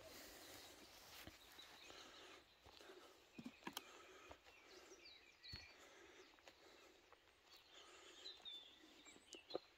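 Near silence with faint background noise; small birds chirp briefly now and then in the second half, and there are a few soft clicks, the sharpest near the end.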